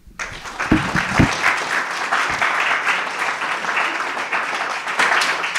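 Audience applauding, with two low thumps about a second in.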